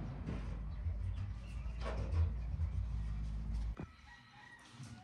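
Chickens clucking and calling over a low steady rumble, which cuts off with a click about four seconds in.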